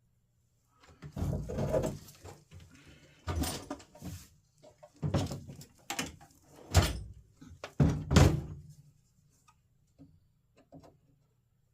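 A run of separate thunks and clatters from tools and hard objects being picked up and moved about, with a few faint clicks near the end.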